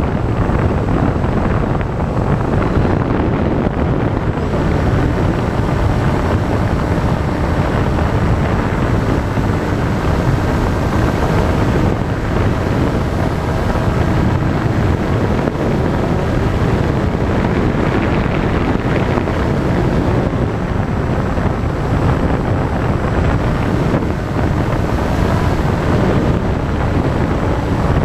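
Steady, loud wind rushing and buffeting over the microphone of an RC glider's onboard camera in flight, with a few faint steady tones underneath.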